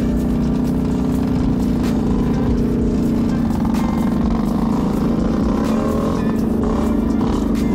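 Off-road vehicle engine running at a fairly steady pitch, with slight rises and dips in revs near the middle.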